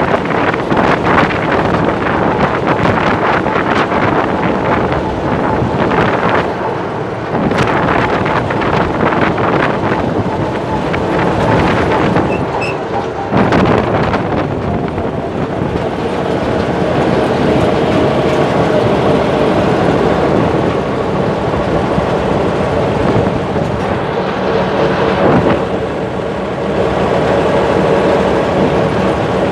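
Massey Ferguson tractor's diesel engine running steadily under way as the tractor drives along a road, heard from the driver's seat.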